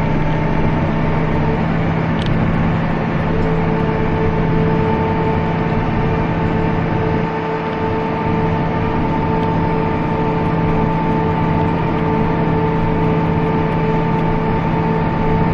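Harvest machinery engine running steadily, a constant mechanical hum with a few steady tones and no change in speed.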